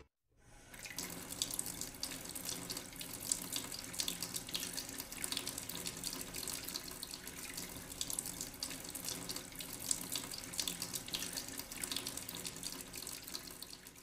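Running, splashing water, fading in at the start and fading out at the end.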